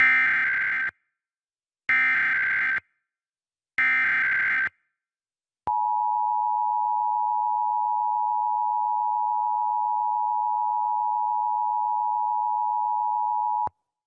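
Emergency Alert System required monthly test signal: three short data bursts of the SAME header, about a second each, then the two-tone attention signal held steady for about eight seconds before cutting off sharply.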